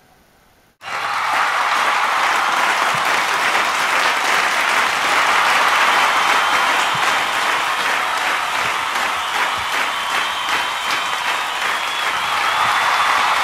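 Large audience applauding. The clapping starts suddenly about a second in and keeps going steadily.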